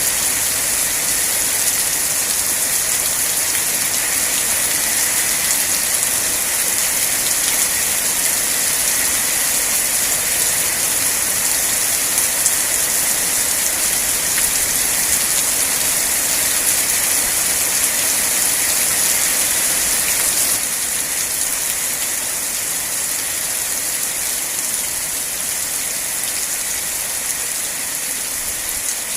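Steady, heavy rain falling, a dense even hiss of drops with no other sounds; it drops a little in level about two-thirds of the way through.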